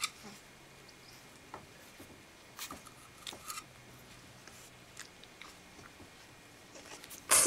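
French bulldog puppies gnawing and scuffling at a wooden board, with scattered soft clicks and scrapes, then a short, loud, sudden sound near the end.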